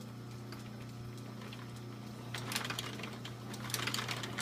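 American Straight Needle sewing machine stitching leather boot tops in two short runs, a rapid clatter of needle strokes starting a little past two seconds in and again about a second later, over a steady low hum.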